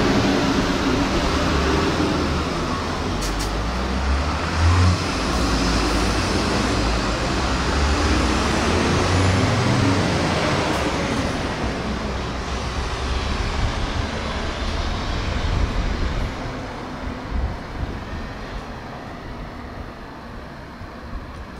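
Road traffic passing on a city street, led by the low engine rumble of a bus; the rumble fades away over the last few seconds.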